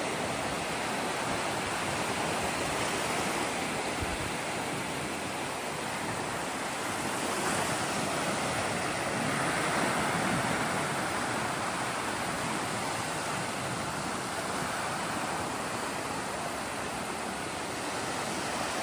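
Steady wash of ocean surf, swelling slightly about ten seconds in.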